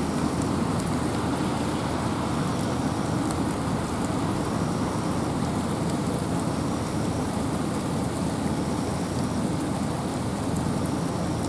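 Steady rain falling on the forest, with wind, as an even rushing noise weighted toward the low end, with light pattering of drops above it.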